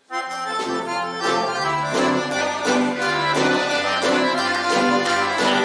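Accordions lead a folk ensemble's instrumental introduction, starting suddenly at the very beginning, with a steady, rhythmic bass line beneath the melody.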